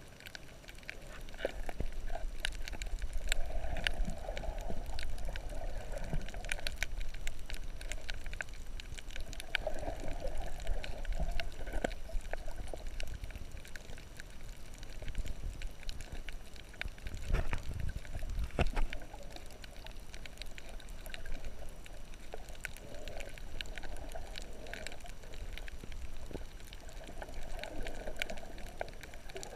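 Underwater water noise picked up by a submerged camera: a low rumbling wash with many scattered clicks and crackles, and muffled swells of moving water every several seconds, the strongest about two-thirds of the way through.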